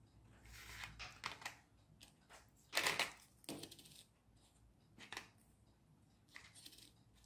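3D-printed plastic pulleys clattering as they are lifted out of a plastic tub and set down on a tabletop: a handful of light clicks and knocks, the loudest about three seconds in.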